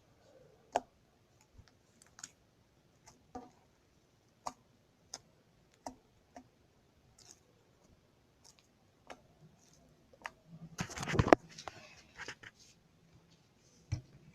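Homemade glue slime being worked by hand, giving off scattered small clicking pops as air pockets burst. About eleven seconds in comes a louder, longer crackling squelch.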